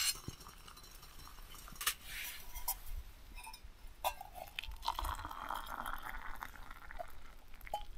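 Metal lid clinking as it comes off a small camping pot, a few light knocks of metal on metal, then hot water poured from the pot into a metal mug for about two and a half seconds in the second half.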